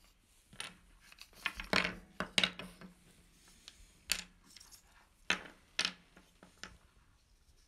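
Small interlocking buckeye-wood puzzle pieces clicking and knocking against each other and a wooden tabletop as a 3D jigsaw puzzle is taken apart by hand: a string of light, sharp clicks, several in quick succession in the first few seconds.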